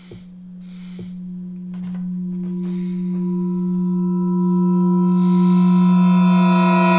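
A swelling drone from a horror soundtrack: one steady low tone that grows steadily louder as more and more higher overtones build in above it.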